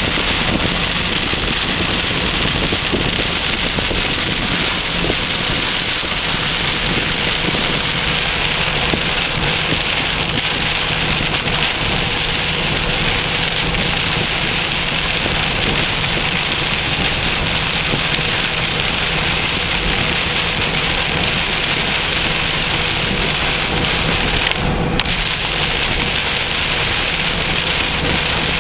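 Heavy rain pouring steadily onto a car in a thunderstorm, a loud, even hiss. The hiss dips briefly near the end.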